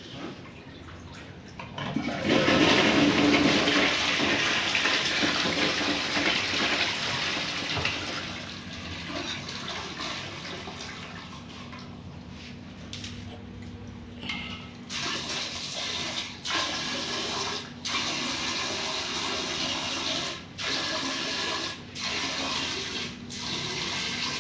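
Toilet flushing: a loud rush of water starts about two seconds in and slowly tapers off, then water runs again with several brief breaks near the end.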